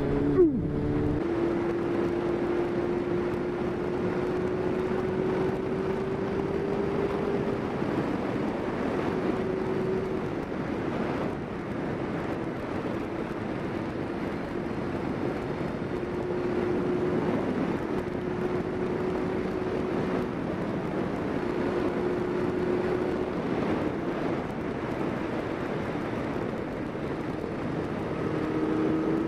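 Yamaha Fazer motorcycle engine running under way, mixed with steady wind rush over the microphone. About a second in the engine note changes as in a gear shift, then climbs slowly for several seconds before settling.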